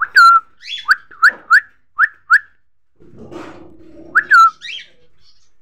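Indian ringneck parakeet giving short, shrill whistled calls: about six in quick succession over the first two and a half seconds. A quieter, lower scratchy sound follows, then two more loud calls near the end.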